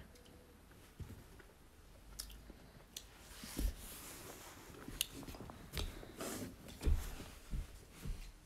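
Hands mixing oily chopped hog plum pieces in a bowl: soft, irregular squishing with small clicks and taps of the fruit pieces against the bowl.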